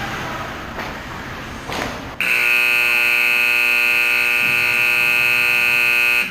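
Ice rink's end-of-period buzzer: one long steady blast starting about two seconds in, lasting about four seconds and cutting off suddenly, marking the end of the second period. Before it, a few short scrapes and knocks of skates and sticks on the ice.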